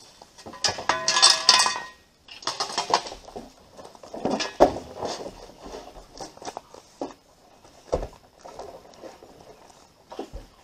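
An empty plastic barrel being handled and carried: clinks, scrapes and hollow knocks, with two heavier thumps near the end.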